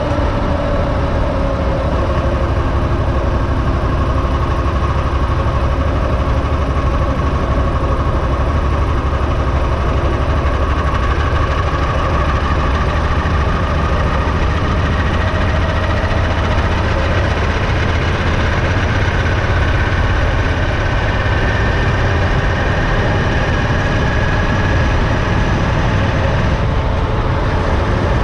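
Motorcycle engine running steadily at highway cruising speed, a low drone under wind and road noise, with a faint whining tone that rises slowly.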